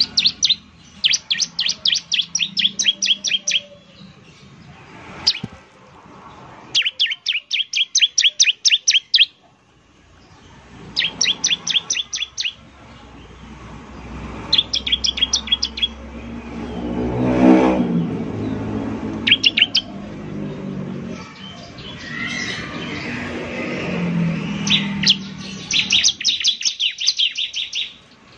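Bar-winged prinia (ciblek) giving bursts of rapid, evenly repeated high chip notes, each burst a second or two long with pauses between. Midway through, a passing vehicle's engine rises and fades underneath.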